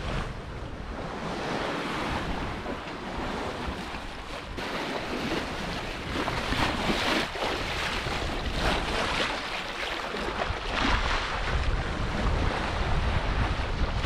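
Sea water washing around a slowly moving sailing yacht, rising and falling in a few surges, with wind buffeting the microphone.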